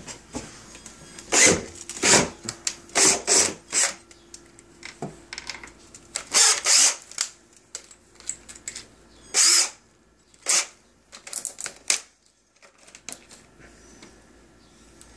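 Power drill driving screws in a run of short bursts, several close together in the first few seconds and a few more up to about twelve seconds in, fastening the cat wheel to its spinner base.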